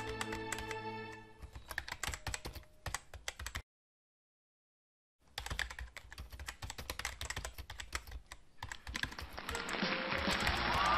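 Rapid computer-keyboard typing clicks used as a sound effect, with music fading out under them in the first second or two. The clicks cut out completely for about a second and a half partway through, then resume, and music swells back in near the end.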